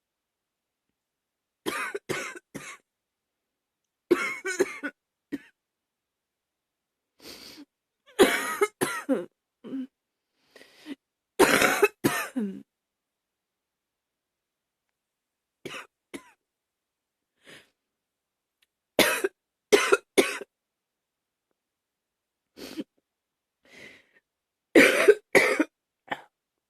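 A woman coughing in repeated short fits, mostly two to four coughs at a time, about a dozen fits with pauses between them; some fits are loud, others faint.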